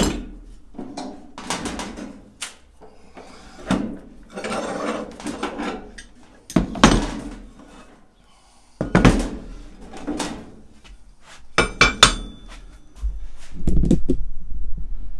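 Steel C-clamps and steel forming bars being handled on a wooden workbench: a series of clanks, knocks and scrapes, with a ringing metal clank about twelve seconds in and a louder stretch of rubbing and handling noise near the end.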